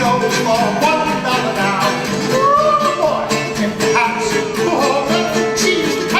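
Live song: a voice singing a bending melody over acoustic instrument accompaniment with a steady beat.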